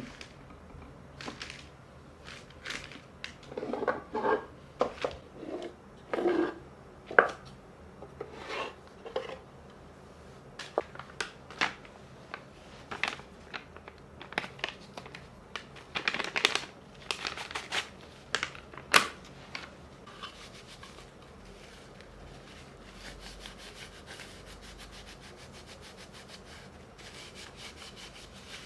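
Hands-on work at a table: objects are handled and set down with scattered clicks and knocks and short rustles. In the last third comes a long run of quick, even rubbing or scraping strokes.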